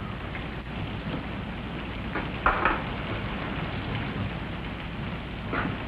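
Rain falling as a steady hiss, with a few brief, sharper hits about two and a half seconds in and again near the end.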